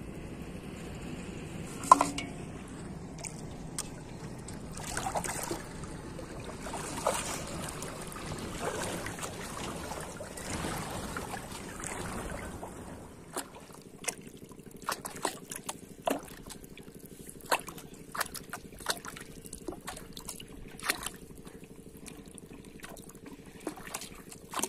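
Shallow water sloshing and trickling, with scattered small splashes and drips and a sharp knock about two seconds in. In the second half a steady low hum sits under the splashes.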